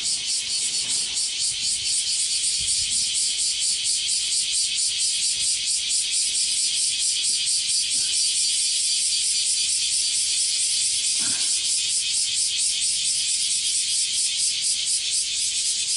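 Cicadas buzzing in a loud, high-pitched, steady pulsing drone.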